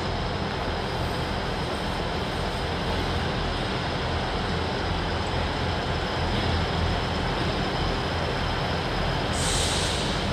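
Class 158 diesel multiple unit running slowly into a station platform: a steady diesel engine drone with wheel and rail noise, and a short hiss near the end.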